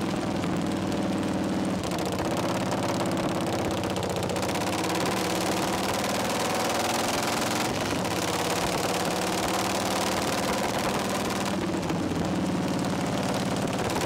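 Harley-Davidson Shovelhead V-twin engine running hard under way on a ride, its exhaust pulses rapid and steady, with the engine note changing a few times.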